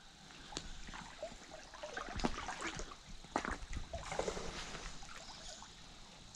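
Water splashing and trickling in a run of irregular splashes, with a few short squeaks mixed in, fading out near the end.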